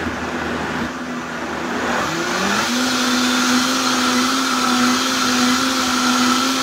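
Countertop blender puréeing thick butternut squash soup. The motor picks up speed about two seconds in with a rising whine, then runs steady at high speed.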